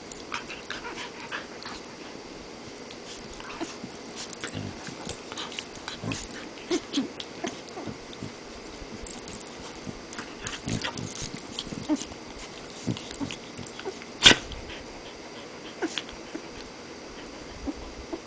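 A large dog play-biting a small puppy: many short, irregular dog noises and mouth sounds, with one sharp, loud one about fourteen seconds in.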